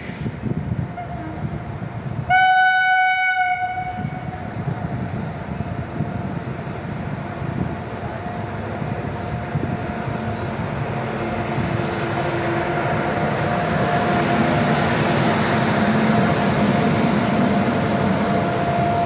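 Electric locomotive hauling a passenger express gives one loud horn blast about two seconds in, lasting about a second and a half. The rumble of the train on the rails then grows steadily louder as the locomotive draws near and passes close by.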